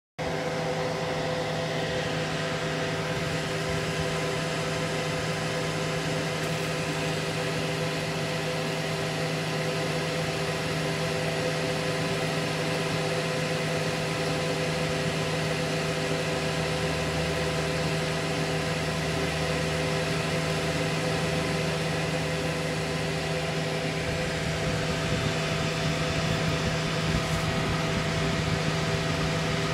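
Cooling fans of a running desktop PC, among them a clear LED case fan set under the graphics card, giving a steady whirring hum with a low drone and a few fixed higher tones.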